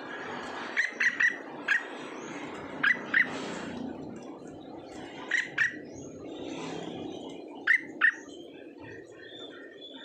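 An animal's short, sharp high-pitched calls, mostly in quick pairs, repeated every two to three seconds over a steady background hiss.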